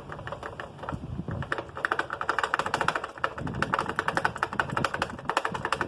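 Rapid run of ratcheting clicks from hand work on the motorcycle's blinker mount, starting about a second and a half in.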